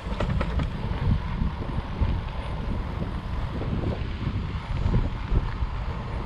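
Wind buffeting the microphone of a camera on a moving fat-tire e-bike, over a low rumble of 4-inch tyres rolling on a sandy dirt trail. A quick run of sharp rattling clicks comes right at the start.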